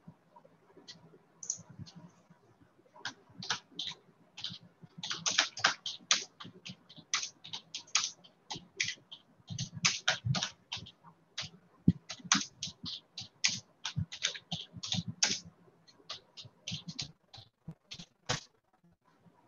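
Typing on a computer keyboard: irregular runs of key clicks, sparse at first and densest through the middle, thinning again near the end.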